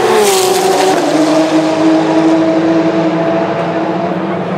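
Race car engines passing along the straight at caution pace, their notes dropping as the cars go by in the first second. A steady engine drone follows and eases slightly near the end.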